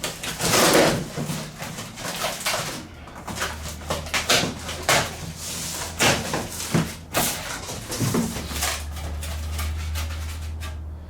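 Cardboard shipping box being opened and handled: a run of sharp scraping, tearing and rustling noises, loudest about half a second in, with a low hum coming and going under the second half.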